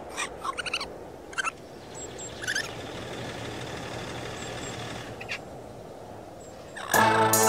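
Raccoons chittering: a quick run of short squeaky calls at the start, then a couple of single calls, over a steady low rush. Music starts near the end.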